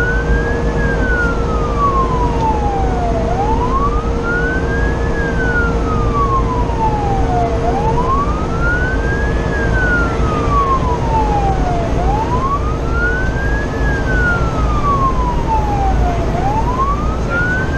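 Fire engine siren on a slow wail, heard from inside the cab, climbing and falling about once every four seconds, rising faster than it falls. A steady hum and the truck's engine and road noise sit underneath.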